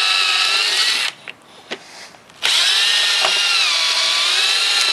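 Ryobi cordless drill running into a plywood block on a wooden table leg in two bursts: the motor whine stops about a second in and starts again about two and a half seconds in, its pitch sagging under load and then recovering. A couple of light clicks fall in the pause.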